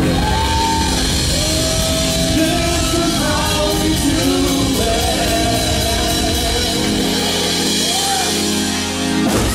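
Live band playing a dance song with electric bass and drums under a sung lead vocal. The full band comes in at the start and stops abruptly near the end.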